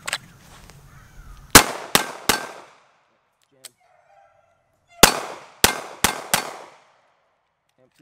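Sig Sauer P365 pistol firing seven shots in a timed drill: three quick shots about a second and a half in, a pause, then four more shots about five seconds in.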